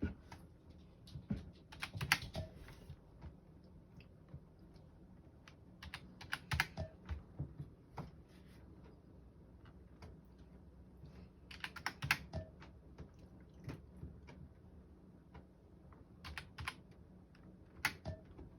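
Typing on a computer keyboard in short bursts of key presses separated by pauses of a few seconds, with odd single keystrokes in between.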